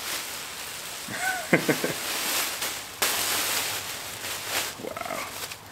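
Plastic wrapping crinkling and rustling as it is handled and pulled off a packaged part by hand, with a sharper burst of crinkling about three seconds in.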